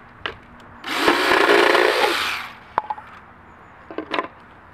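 Handheld power saw cutting through a thin wooden paddle blank for about a second and a half, shaping the blade smaller and rounder. A few light knocks and clicks come before and after the cut.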